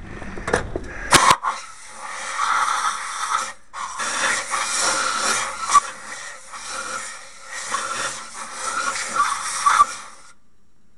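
Compressed-air blow gun hissing in long, uneven bursts, drying a freshly solvent-flushed oil passage at a diesel engine's main bearing and clearing out metal chips. A couple of sharp knocks come about a second in, and the hiss cuts off near the end.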